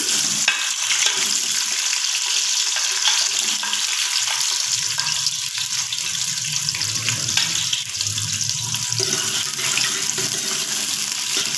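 Sliced onions hitting hot oil in a steel pot, sizzling loudly as they begin to fry. The sizzle starts suddenly and then holds steady.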